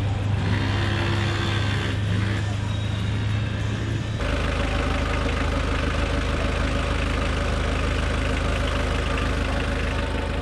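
Race car engines in a paddock. In the first seconds an engine's revs rise and then hold, twice. From about four seconds in, an engine idles steadily close by.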